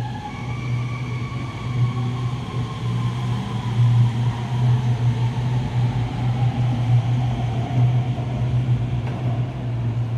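Guangzhou Metro Line 21 train pulling out of the platform behind the screen doors: a steady low rumble, with an electric whine whose tones set in about half a second in and slowly drift lower.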